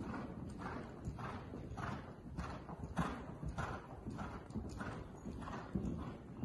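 Hoofbeats of a gray American Quarter Horse mare loping on soft arena dirt, an even three-beat stride rhythm with a stroke a little under twice a second.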